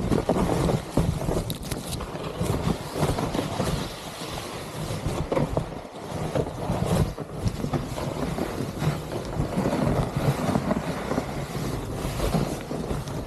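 Wind buffeting the microphone in gusts, a low rumbling noise that rises and falls.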